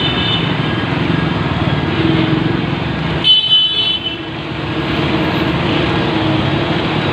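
Busy road traffic with vehicle engines running. A vehicle horn honks for under a second about three seconds in, the loudest sound here, and there is a shorter horn note at the very start.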